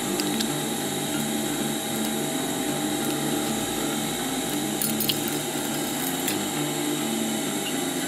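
A steady hum with several low tones, like a small motor, with a few faint light clicks over it.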